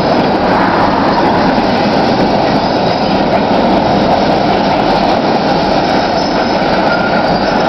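Freight cars rolling slowly through a rail yard: a steady rumble of steel wheels on rail, with faint high wheel squeals near the end.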